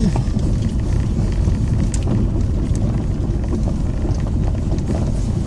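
Car driving slowly down a steep gravel road, heard inside the cabin: a steady low rumble of tyres rolling over loose gravel, with scattered small ticks of stones.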